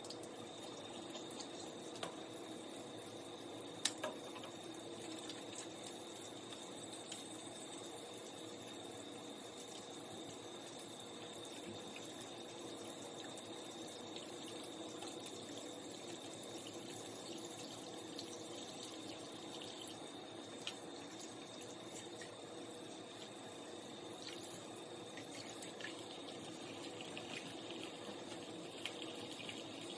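Tap water running steadily into a sink during handwashing, with a few faint knocks and clicks.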